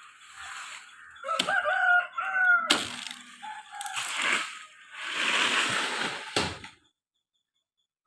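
A rooster crowing once, a long held call, with a few sharp cracks and a burst of noisy rustling after it. The sound cuts off to silence near the end.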